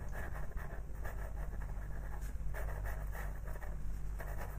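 Pastel pencil scratching in short, quick strokes on pastel paper as colour is laid into a small area, over a low steady hum.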